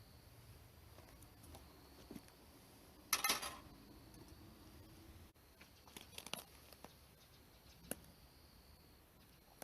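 Faint handling noises over a quiet background: a brief rustle about three seconds in, then a few small clicks.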